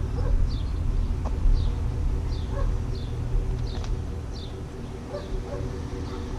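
A bird chirping over and over, short high notes that fall in pitch, about one or two a second, over a steady low rumble.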